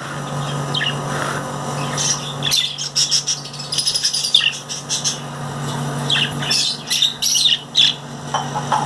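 Small birds chirping and squawking in quick, irregular bursts, busiest in the middle and again near the end, over a steady low hum.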